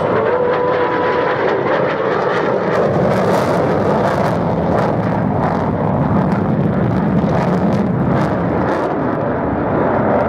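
Pratt & Whitney F135 turbofan of an F-35A Lightning II jet in flying display, a steady loud jet roar with a crackle running through it.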